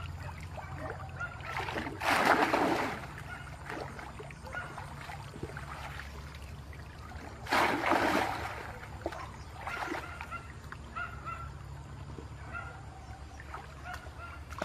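Two loud splashes, about two seconds in and again at about seven and a half seconds, as a bamboo plunge-basket fish trap is thrust down into shallow muddy pond water, with quieter sloshing and wading between them. Faint short chirps sound in the background.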